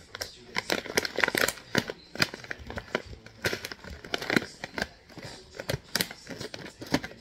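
Scissors cutting open a plastic rice bag: irregular crinkling and crackling of the plastic as it is handled and snipped.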